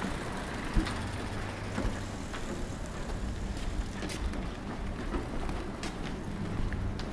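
Outdoor street ambience: a steady low hum of distant traffic and machinery, with scattered small knocks and clicks and a faint high-pitched whine for about two seconds in the middle.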